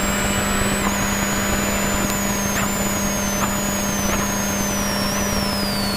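Rally car at speed heard from inside the cockpit: the engine runs steadily under load with road and wind noise, a high whine slowly falling in pitch, and a few faint knocks.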